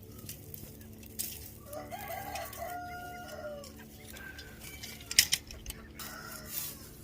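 A rooster crows once, about two seconds in, amid scattered rustling and clicks, with a sharp knock a little after five seconds.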